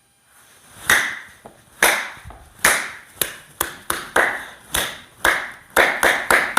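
A series of sharp hand strikes, about a dozen, beginning about a second in. They come roughly a second apart at first and then faster, two or three a second near the end.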